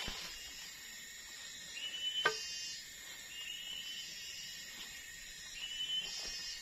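Tropical forest insects droning steadily, with a short rising chirp repeating about every two seconds and one sharp knock a little over two seconds in.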